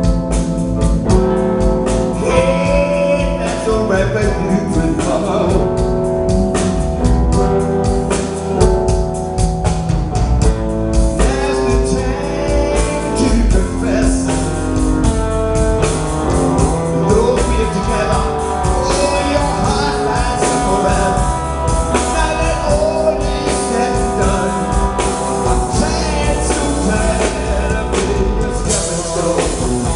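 Live rock band playing: an electric guitar lead with sliding, wavering notes over bass guitar and drum kit.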